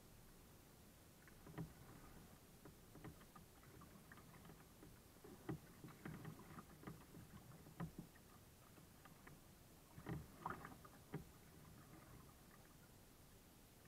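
Kayak paddling, quiet: irregular paddle strokes dipping and splashing in the water, with scattered light knocks and clicks.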